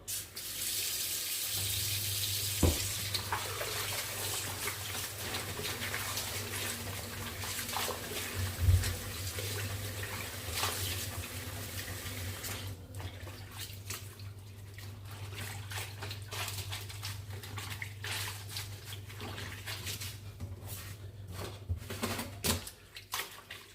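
Kitchen tap running into a sink, strong for the first half and then weaker and broken up, with occasional knocks and clicks from things handled in the sink.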